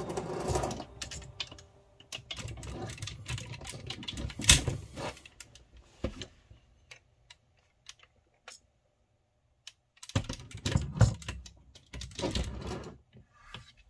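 Hard plastic robot toy parts clicking and knocking as they are handled, in irregular clusters of small clicks with a sparser, quieter stretch in the middle.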